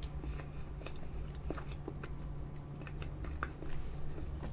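Close-miked chewing of soft tiramisu: scattered small wet mouth clicks and smacks, over a low steady hum.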